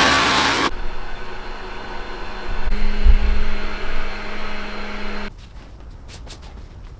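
Wood lathe motor running with a steady hum. A loud rushing noise in the first second stops abruptly, and the hum cuts off sharply about five seconds in.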